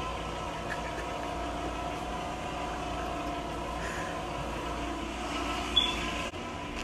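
A steady mechanical hum with several held tones over a low noise, and a brief high chirp near the end.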